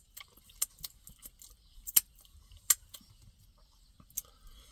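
Irregular sharp little clicks and ticks, about eight in a few seconds, as salmon is picked apart by hand and eaten.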